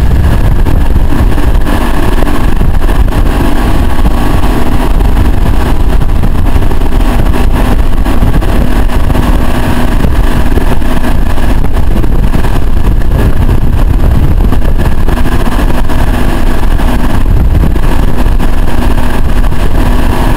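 Motorboat engine running steadily at towing speed, with wind rumbling on the microphone. Loud and unbroken, with a faint steady hum under the noise.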